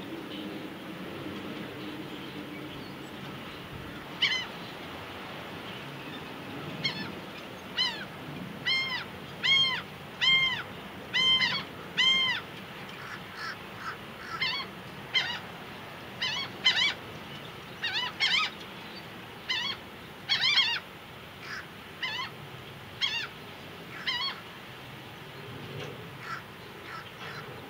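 Laughing gull calling: a series of laughing, arched 'ha' notes that rise and fall in pitch, starting about four seconds in, coming about one a second at their loudest, then more scattered and fading toward the end.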